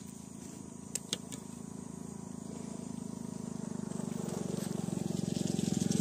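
A motor vehicle's engine running and drawing closer, growing steadily louder. Two sharp clicks about a second in.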